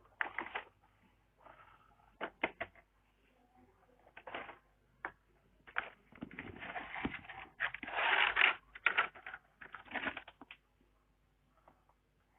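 Scattered clicks, small knocks and rustling of hands handling a multimeter's test leads and the transformer's wiring, with a longer stretch of rustling about six to nine seconds in.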